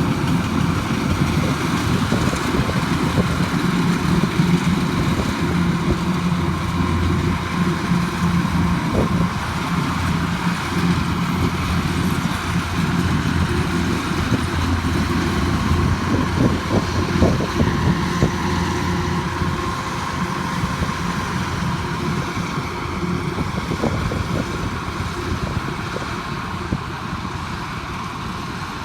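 Engine of a farm machine running steadily with a low hum, slowly getting quieter over the last ten seconds or so.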